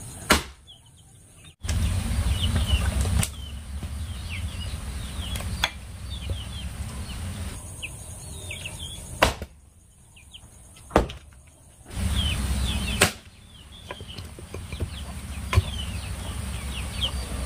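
Axe chopping and splitting firewood logs: about seven sharp blows at uneven intervals of two to four seconds, with birds chirping behind.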